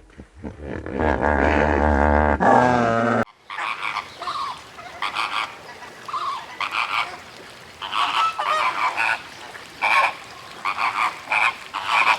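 Farm animal calls: a long wavering call for the first three seconds, then an abrupt change to many short, repeated honking calls from farm fowl.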